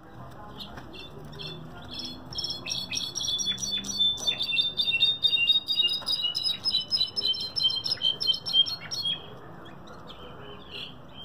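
Brown-backed solitaire (Mexican jilguero) singing one long song of rapid, ringing whistled notes. It builds over the first two seconds and stops abruptly about nine seconds in.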